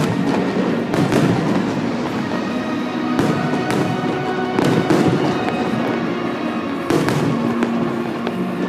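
Fireworks display going off: a dense run of bangs and crackling bursts, with a sharp bang every second or two, over music playing.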